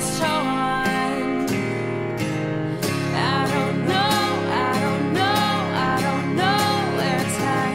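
Background music led by acoustic guitar, with a melody in short repeated phrases from about three seconds in.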